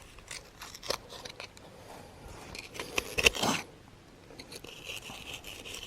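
Hand tools scraping and clicking on rock and gravel while digging out a bedrock crevice, with a longer, louder scrape about three seconds in.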